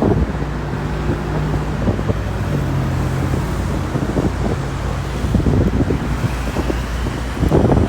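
Steady road-vehicle and traffic noise with wind rumbling on the microphone, under a low steady hum that drops slightly in pitch about two and a half seconds in.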